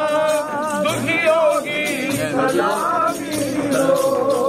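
Men singing an Urdu devotional salaam together in long, wavering sung lines, over a light, fast, steady percussive ticking.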